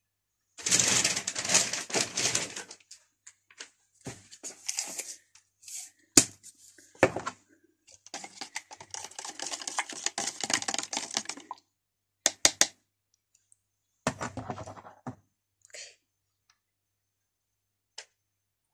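Bursts of rapid clattering and scraping from a spoon stirring a drink in a plastic cup, with single sharp clicks and knocks between them.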